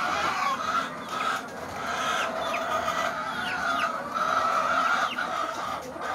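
A large flock of caged laying hens clucking continuously, many birds calling at once, with short squawks rising and falling over the steady chorus.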